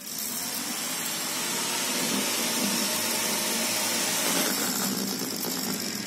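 Two small DC motors spinning plastic propellers on a homemade remote-control bug robot, a steady high whir that starts up and builds briefly, then runs on evenly.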